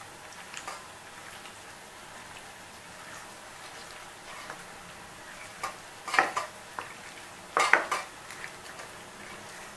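A hand mixing raw chicken pieces with turmeric and chilli powder in a steel bowl: wet squelching and a few sharp scrapes and knocks against the bowl, the loudest about six and eight seconds in, over a steady low hiss.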